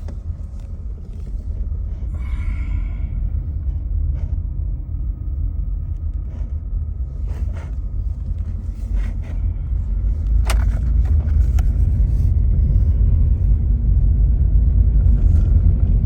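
2007 Honda Civic Hybrid driving with a steady low rumble that grows louder over the second half, with a few short clicks. Its engine is misfiring in cylinders 1 and 3 after running low on oil, and it sputters when given gas.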